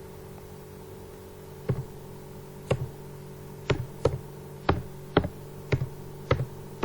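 About eight sharp, separate key clicks, tapped slowly one at a time as a word is typed, over a steady low hum.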